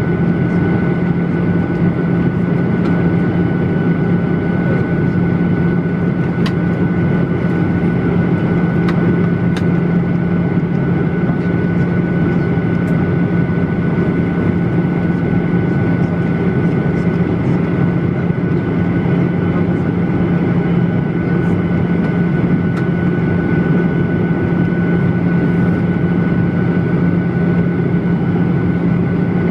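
Steady in-flight cabin noise of a Boeing 737-800 heard from a window seat over the wing: the rush of air and the drone of its CFM56-7B turbofan engines, with a constant low hum and a fainter high-pitched whine. The aircraft is descending, just after cabin preparation for landing.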